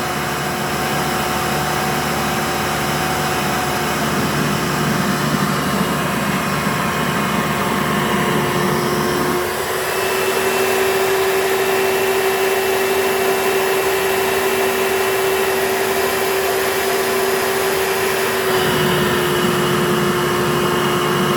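Hoover U4717-930 Elite upright vacuum cleaner's motor running steadily with a high whine. About nine seconds in, its pitch steps up slightly and the low rumble falls away. It returns to the first sound about nine seconds later.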